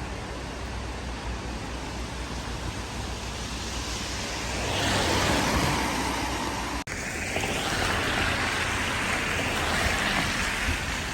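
Street traffic noise, with a vehicle passing about halfway through and a brief sudden break just after.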